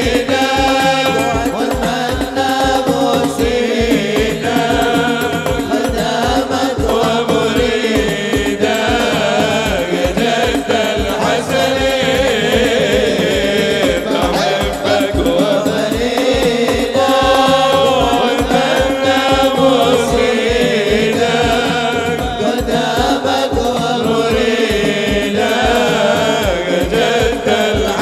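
Male voices singing sholawat, an Islamic devotional song, into microphones, accompanied by a hadroh ensemble of frame drums and bass drums keeping a steady beat.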